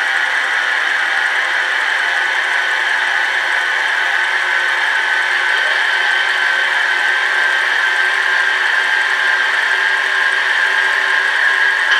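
Sound decoder in an HO-scale 113 series train model playing recorded electric-train running sounds through its small 28 mm speaker: a steady whine, with a little mechanical whirring and rattling mixed in.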